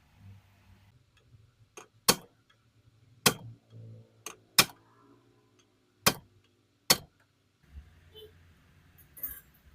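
A series of sharp hard clicks and knocks, about six loud ones at uneven intervals of one to one and a half seconds, with a few fainter ticks between them.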